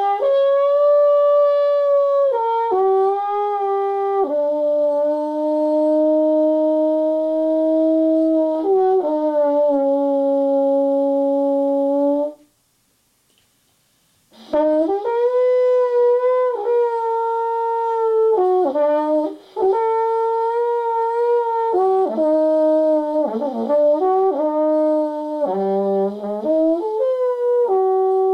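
Soprano trombone playing an improvised solo: long held notes joined by sliding changes of pitch, with a pause of about two seconds midway.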